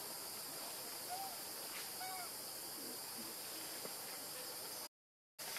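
Steady high-pitched drone of forest insects, with a few faint, short hoot-like calls about one and two seconds in. The sound cuts out completely for about half a second near the end.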